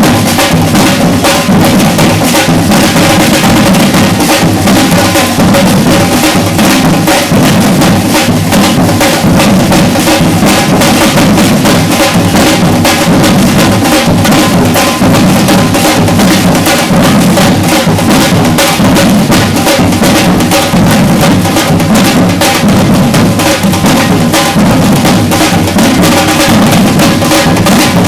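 Batucada drum ensemble playing a loud, dense, unbroken groove: deep bass drums under rapid snare strokes.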